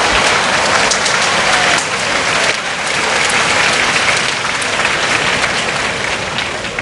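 Sumo arena crowd cheering and applauding as a bout ends, a dense roar of claps and voices that slowly dies down.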